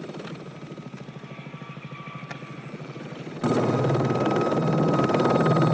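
Helicopter in flight: a fast, even rotor chop, fainter at first. About three and a half seconds in it turns abruptly much louder, with a steady high turbine whine over the beating blades.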